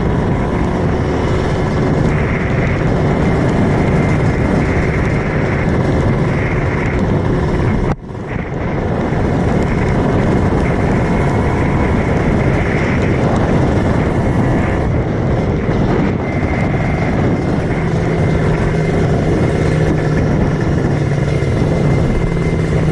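Kawasaki Ninja 150cc single-cylinder two-stroke engine running as the motorcycle is ridden, mixed with steady wind and road rush. The sound breaks off briefly about eight seconds in.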